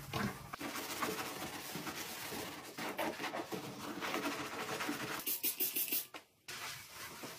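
Scrubbing on bathroom tiles and a bath tap with a scrubber and a sponge, followed near the end by several quick hissing squirts of cleaning spray from a trigger spray bottle.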